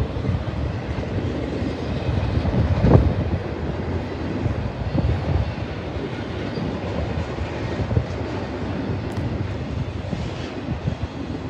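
Long intermodal freight train rolling steadily past, the wagons' wheels running on the rails, with wind noise on the microphone.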